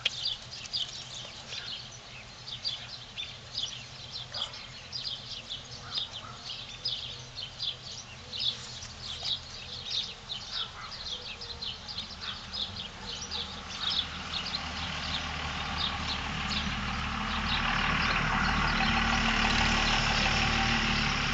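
Small birds chirping busily in quick, high chirps. From about two-thirds of the way in, a motor vehicle's engine and road noise grow louder and stay loud near the end.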